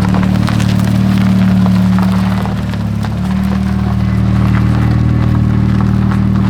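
Volkswagen Golf Mk4's turbocharged 1.8T four-cylinder engine running steadily, with a brief dip in level about two and a half seconds in before it picks up again.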